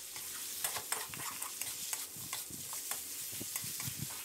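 Metal spatula scraping and tossing pieces of pork belly around a metal wok, with irregular scrapes and clinks over a steady sizzle of frying. The shrimp-paste sauce is cooking down onto the pork.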